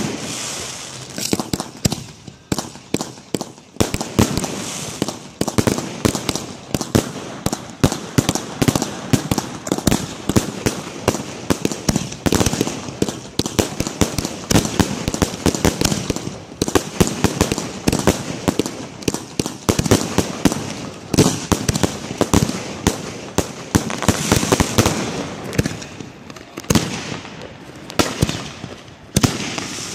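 Aerial fireworks going off in a rapid barrage: many sharp bangs a second, some louder than others, keeping up without a break.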